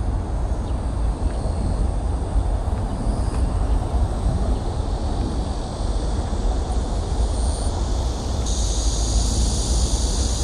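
Steady low outdoor rumble, with a high, even hiss joining about eight seconds in.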